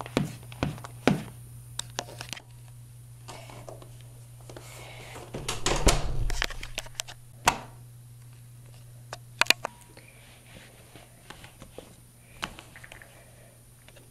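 A few footsteps on a hard floor at the start, about two a second. Then a short rustling scuffle and several sharp clicks, among them a wall light switch being flipped.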